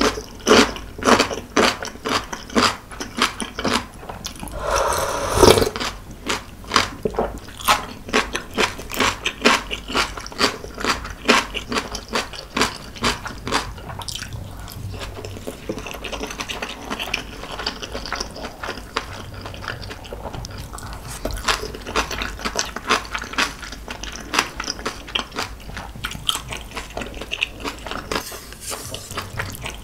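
Close-miked eating sounds: steady chewing of ramyeon noodles and a soft rolled dumpling, about two chews a second, with a short slurp about five seconds in. The chewing turns softer and wetter in the middle.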